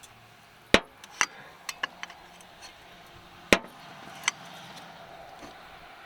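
Sharp knocks from tools striking the car's suspension parts. A loud strike comes under a second in and another about three seconds later, with lighter taps between them.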